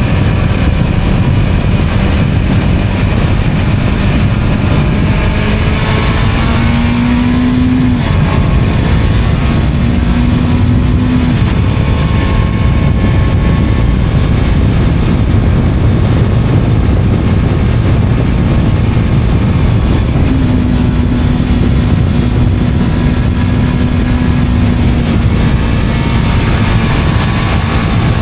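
Motorcycle at road speed, its engine heard under heavy wind rush on the microphone. The engine note rises and drops back a few times as the throttle changes, then holds fairly steady late on.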